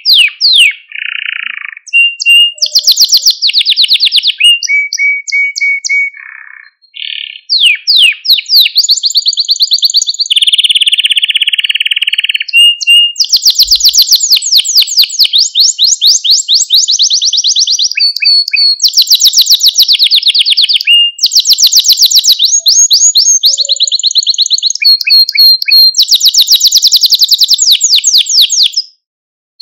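Male canary singing: phrase after phrase of very fast trills and rolls, broken by short held whistled notes, with a brief pause about six seconds in.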